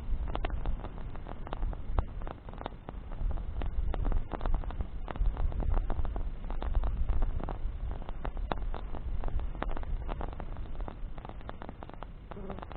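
Wood bonfire burning, crackling with frequent irregular pops and snaps over a low steady rumble.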